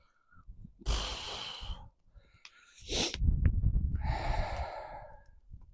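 A sneeze: a breathy intake about a second in, a sharp burst about three seconds in, then a long breathy exhale that fades out.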